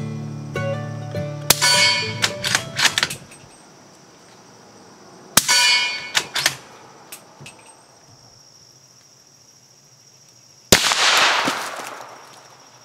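Suppressed Ruger American Ranch bolt-action rifle in 300 AAC Blackout firing three shots, spaced about four and five seconds apart, each followed by a few sharp clicks. The last shot rings on for about a second.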